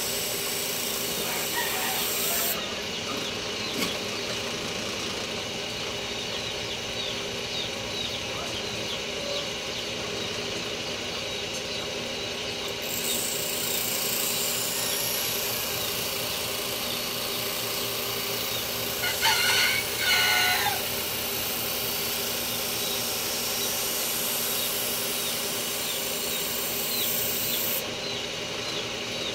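A steady machine hum runs throughout, and a rooster crows once, loudly, about two-thirds of the way through.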